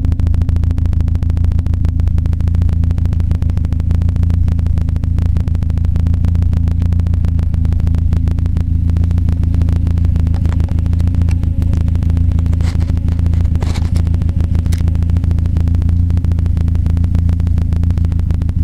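Mazda 626's FS 2.0-litre four-cylinder engine idling steadily through a straight-piped 2-inch exhaust with no muffler, giving a deep, even exhaust drone.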